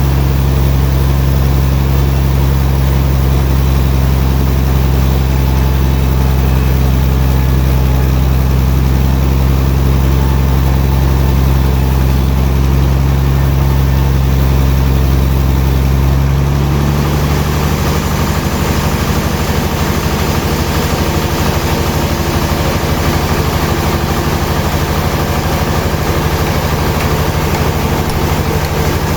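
Heavy sawmill machinery running with a steady, loud low hum. About halfway through, the sound changes to a rougher, noisier running.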